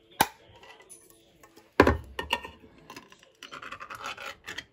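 Ring-pull lid on a can of pineapple slices being worked open by hand: a few sharp clicks and a thud about two seconds in, then a scratchy metal rasp near the end as the lid tears back.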